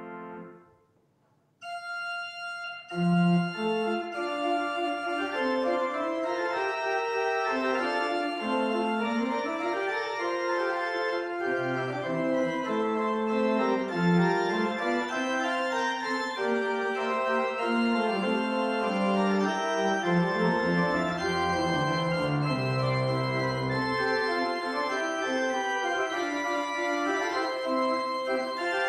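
Church organ playing. A held chord cuts off just after the start. After a pause of about a second, a quieter chord sounds, and from about three seconds in the organ plays loud, full chords over a moving bass line.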